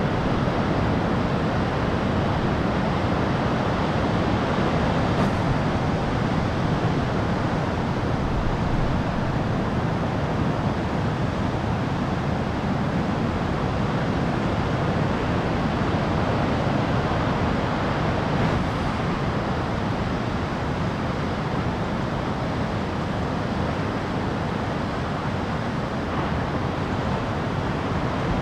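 Heavy ocean surf breaking, a steady even rush of noise with wind mixed in.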